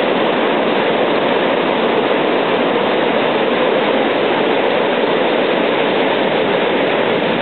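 Steady rush of whitewater pouring over a low river weir, an even roar with no distinct splashes or breaks.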